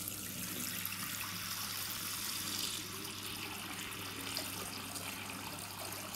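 Tap water running steadily into a bathroom sink, the stream splashing on the drain, with a faint low hum underneath.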